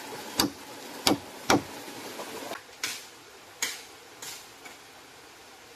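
A blade chopping into a green bamboo stem: sharp, separate knocks about every half second to second, the first three loudest and the later ones fainter.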